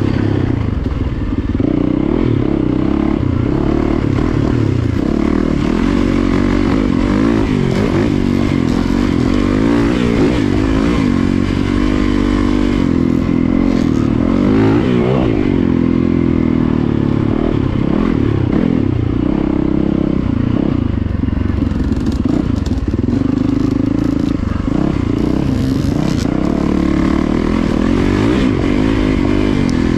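Dirt bike engine running under way on a trail ride, its note rising and falling as the throttle is opened and rolled off.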